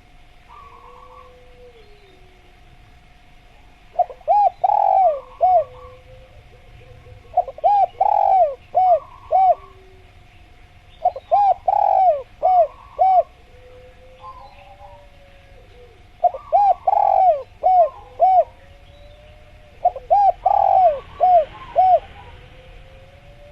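Spotted dove cooing: five phrases of several quick rising-and-falling coos, one about every three to four seconds. Softer calls of other birds and a steady faint tone run underneath.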